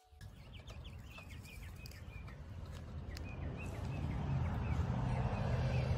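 Outdoor background noise: a low rumble that grows louder over the last few seconds, under a run of short, high chirps.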